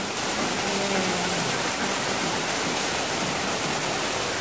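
Heavy tropical downpour: a steady, even hiss of rain pouring onto the street and surroundings.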